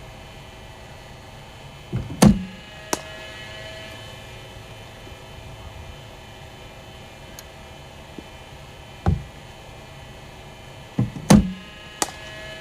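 Two deliveries in cricket bowling-machine practice. Each is a loud thud followed about two-thirds of a second later by a sharp crack, with a further single thud between them. A steady hum runs underneath.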